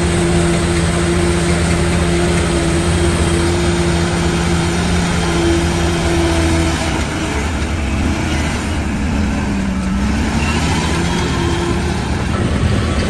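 Heavy diesel engine of earthmoving machinery running steadily. About seven seconds in its steady note drops away, and near ten seconds the pitch dips and rises again as the engine changes speed.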